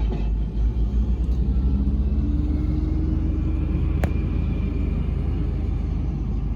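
Engine of heavy farm equipment running steadily while gravel is being moved, a loud low rumble with a faint steady whine over it and one sharp click about four seconds in.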